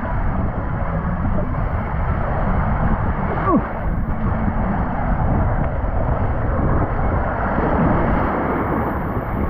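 Steady rushing of water and wind buffeting the action camera's microphone, with two brief distant shouts, one about a third of the way in and one at the end.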